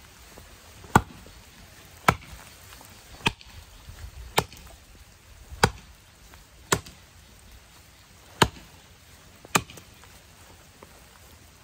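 Hults Bruk 24-inch axe chopping into the trunk of a standing sapling about five inches thick: eight sharp strikes, roughly one a second.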